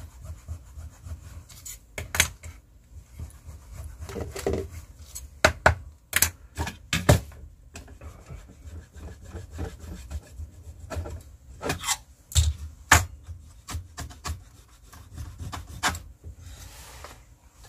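Hands working inside a desktop computer case: irregular clicks, knocks and scraping as plastic and metal parts are handled.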